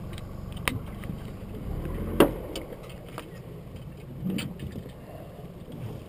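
Steady low rumble of river water and wind around a boat, with a few sharp knocks and clicks from handling gear and fish aboard; the loudest, a knock with a low thump, comes about two seconds in.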